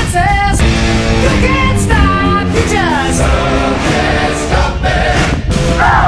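Background rock music with singing.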